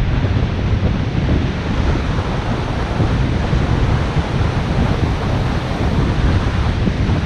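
Wind rushing over the microphone of a GoPro moving at cycling speed, a steady heavy low rush, with surf breaking on the shore just beside it.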